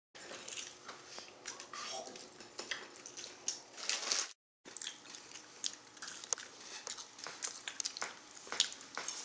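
Close, faint crunching and chewing of food: scattered small crackles and clicks. The sound drops out briefly a little over four seconds in.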